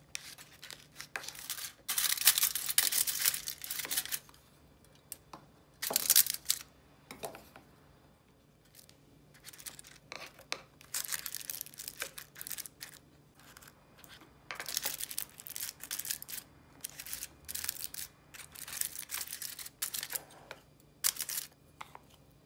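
Food being packed into plastic bento boxes with chopsticks: short bursts of crinkling from aluminium-foil and paper cup liners, with light clicks of chopsticks against the plastic.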